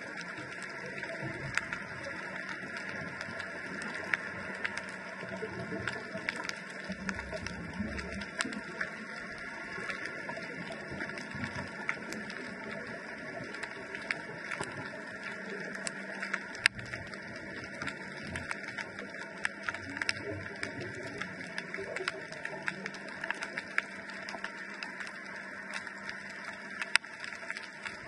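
Underwater ambience picked up by a GoPro in its dive housing: a steady hiss with frequent sharp clicks and crackles, and a few low rumbles.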